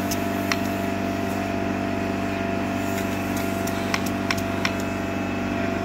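Air compressor motor running steadily, building up tank pressure for a pneumatic framing nailer, with a few sharp clicks over the hum.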